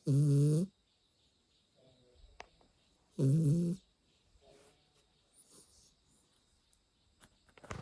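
Snoring: two loud, wavering snores about three seconds apart, each lasting under a second, with fainter breaths between.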